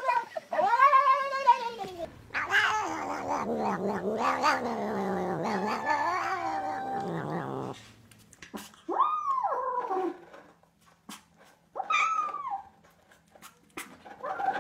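Domestic cat calling: a short meow, then a long yowl that wavers up and down in pitch for about six seconds, then three short meows a few seconds apart.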